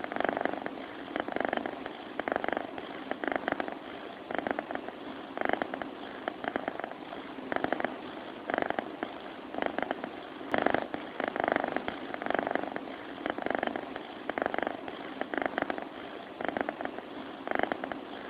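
Sleeping domestic cat purring and snoring, a rattling sound that swells and fades with each breath, about once a second.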